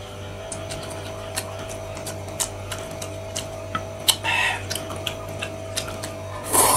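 Close-miked eating sounds: chewing noodles with frequent wet mouth clicks, over a steady low hum. A sharper click comes about four seconds in, and a short louder slurp near the end.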